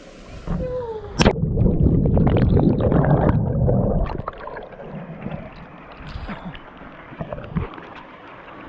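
River water splashing and gurgling close to the microphone, starting with a sharp knock about a second in and loudest for about three seconds, then settling back to the steady rush of the river.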